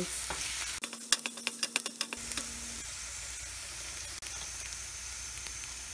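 Chopped onions and turmeric sizzling in hot oil in a nonstick frying pan, stirred with a wooden spatula. About a second in comes a quick run of clicks and taps as the spatula knocks against the pan.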